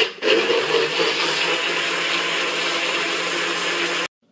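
NutriBullet personal blender running, blending berries with watermelon juice: a loud, steady whir that starts abruptly and cuts off suddenly about four seconds in.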